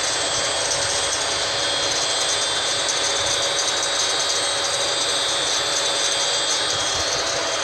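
Welding-shop exhaust ventilation fan running steadily: a constant rush of air with a steady high-pitched whine.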